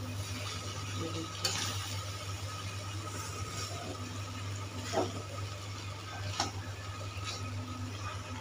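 Spoon stirring and scraping rice around a frying pan, with a few sharper scrapes against the pan, the loudest about five seconds in, over a steady low hum.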